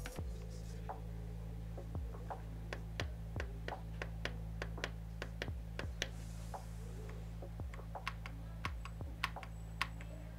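Typing on an AKKO 5075B Plus Air mechanical keyboard fitted with Akko V3 Piano Pro linear switches: irregular key presses, a few a second. A steady low hum runs under the typing.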